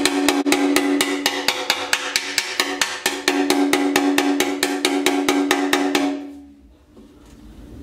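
Rapid light hammer blows on a steel motorcycle petrol tank worked over a metal bar, about six or seven a second, each setting the tank ringing with a steady hum. This is a dent being knocked out from inside the tank. The tapping stops about six seconds in.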